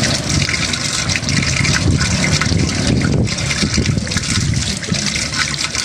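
Tap water running steadily and splashing over hands being washed.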